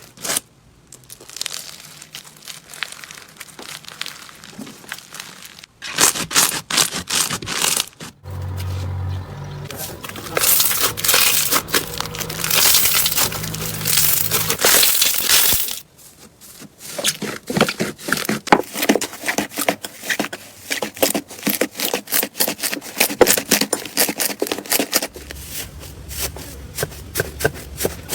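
Slime being squished and worked by hand, giving dense crackling and popping clicks. The sound comes in several separate segments that start and stop abruptly.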